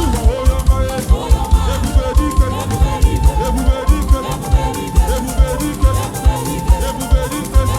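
Live gospel worship band playing an upbeat groove: a steady drum beat under bass, sustained keyboard chords and light high percussion.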